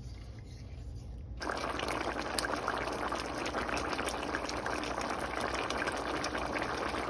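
Duck curry boiling in a pot: a dense, steady bubbling with many small pops that comes in suddenly about a second and a half in.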